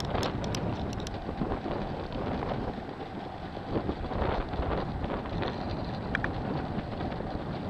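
Wind buffeting the microphone over the rush of a choppy sea around a small boat, with a few sharp clicks in the first second.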